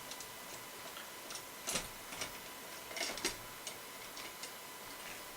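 Scattered light clicks and taps, irregularly spaced, as the EPYC CPU in its plastic carrier frame is handled and seated into the motherboard socket.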